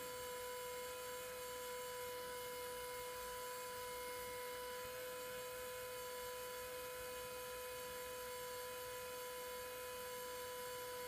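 Steady electric hum of a Bohning cresting machine's small motor spinning an arrow shaft, with two steady high tones over it.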